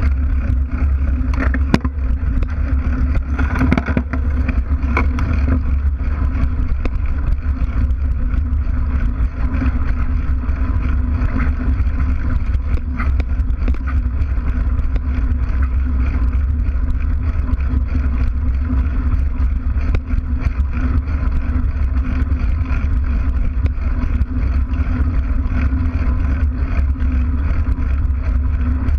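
Mountain bike rolling over a sandy, gravelly dirt track: a steady low rumble of the knobby tyre and frame vibration picked up right at the rear wheel, with small scattered clicks of grit and stones.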